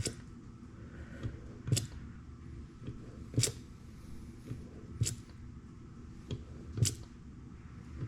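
Hand-operated bucket pump being stroked to push cold gear oil into a Massey Ferguson 245's final drive. There is a sharp clack about every 1.7 seconds, five in all, with softer knocks between them on the return strokes.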